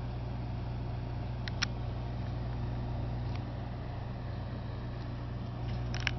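Steady low hum of room or recording noise, with a light click about one and a half seconds in and a quick pair of clicks near the end.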